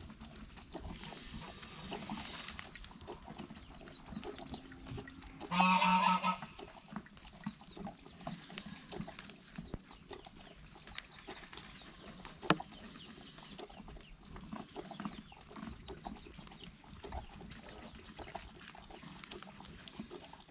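A dog eating from a bowl, with scattered small clicks and crunches throughout. One loud, short pitched farm-animal call comes about six seconds in, and a single sharp click about halfway through.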